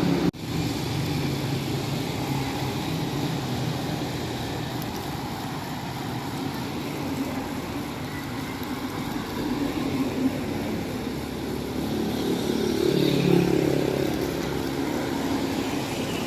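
Steady road and engine noise from a vehicle driving along a street. The sound cuts out sharply for a moment just after the start, and it swells for a couple of seconds near the end.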